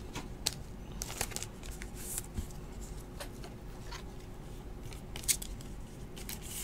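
Faint rustling and scattered light clicks of trading cards and clear plastic card sleeves being handled.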